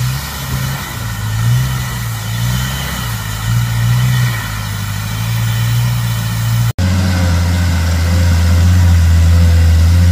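Off-road 4x4 engine labouring up a steep muddy track, the revs rising and falling as the driver works the throttle. After a sudden cut about two-thirds of the way through, another off-roader's engine runs louder and steadier.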